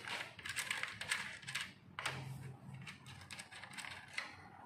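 Screwdriver working a terminal screw on a circuit breaker in a distribution board, loosening it to free a supply wire: a run of small, irregular metal clicks and scrapes.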